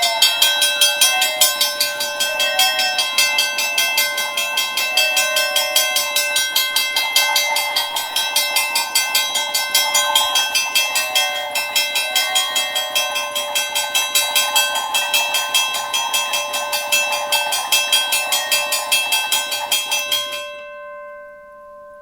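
Western-Cullen-Hayes second-generation mechanical railroad crossing bell ringing, its striker hitting the gong in rapid, steady strokes several times a second. The strokes stop about twenty seconds in, and the gong rings out and fades.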